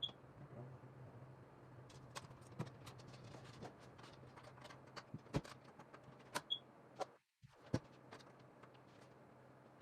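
Scattered light clicks and taps of cables, plugs and computer peripherals being handled and plugged in, a few sharper knocks among them, over a low steady hum.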